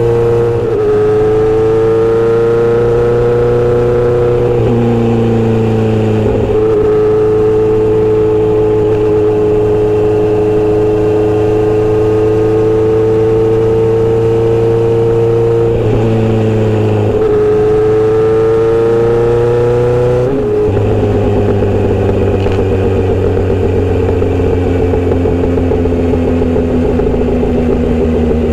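Inline-four motorcycle engine and exhaust running under way at fairly steady revs. The pitch steps down and back up several times, with a sharper change about twenty seconds in.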